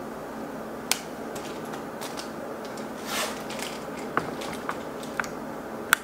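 Steady background hiss under a handful of scattered light clicks and taps, with a short rustle about three seconds in. These are the small desk-handling sounds of someone settling in at a laptop to start typing.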